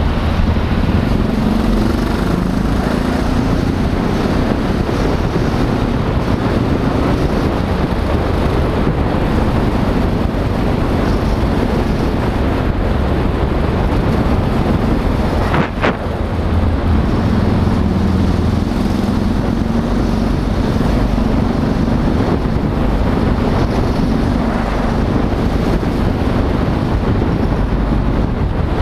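Motorcycle running through a road tunnel in traffic, its engine humming under steady wind rush on the bike-mounted microphone. About halfway through there is a brief sharp click and a momentary drop in the sound.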